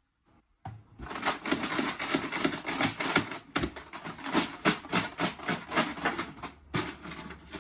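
Numbered draw tokens rattling as their container is shaken: a dense, irregular clicking rattle for about six seconds, with a brief pause near the end.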